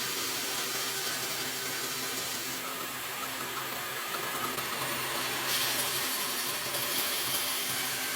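A motor running steadily with a hissing rush, which turns brighter and a little louder about five and a half seconds in.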